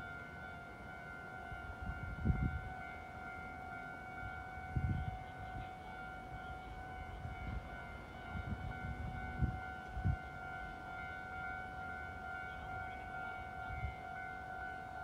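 Steady, unchanging electrical whine from stationary electric trains' onboard equipment, with a few low dull bumps here and there.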